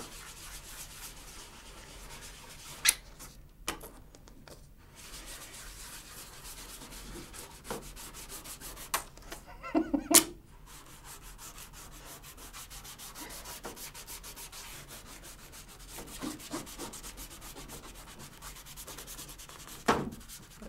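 Squeeze-bottle paint applicator rubbed back and forth across a drawing in quick, even strokes as the picture is painted over. A few sharp knocks break in, the loudest about ten seconds in.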